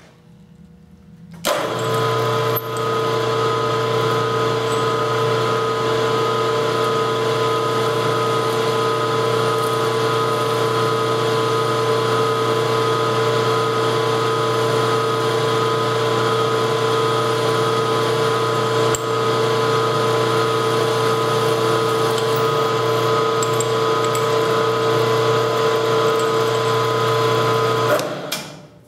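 Milling machine spindle switched on about a second and a half in, running at a steady pitch while a center drill cuts the first hole of a bolt circle in a metal bar. It shuts off about a second before the end.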